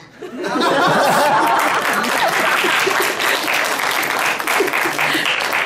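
Audience applause: many hands clapping together in a steady, dense patter that starts about a third of a second in.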